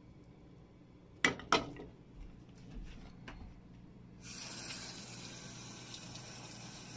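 Two sharp knocks and a few lighter ones, then a kitchen sink faucet turned on about four seconds in, water running steadily into the sink.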